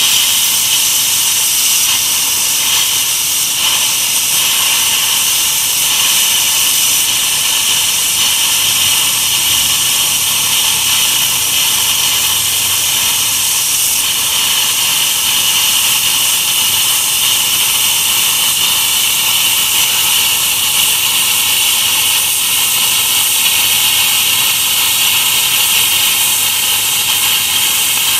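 Plasma cutter arc cutting through 12 mm steel plate: a loud, steady hiss that holds without a break.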